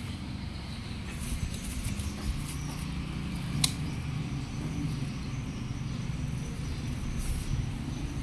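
Advance 18-inch cyclone stand fan running with a steady low rumble. One sharp click a little over three and a half seconds in, as the rotary speed knob on its in-line cord switch is turned.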